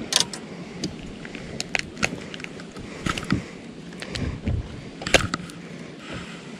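Scattered sharp clicks and small rattles from a skirted swim jig's hook and the hands being worked out of a largemouth bass's mouth. The loudest clicks come just after the start and again about five seconds in, over a steady low hiss.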